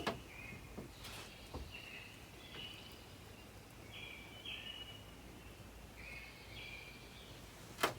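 A faint series of short, high-pitched calls, each a brief steady note, some stepping between two pitches, repeated irregularly over a steady background hiss. A sharp knock comes just before the end.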